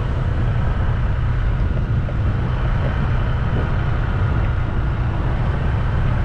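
A vehicle engine running steadily while driving along, a constant low drone with road noise and no change in speed.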